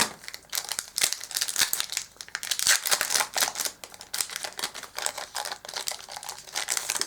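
Foil trading-card booster pack being torn open and crinkled, a dense run of crackling and rustling that cuts off suddenly at the end.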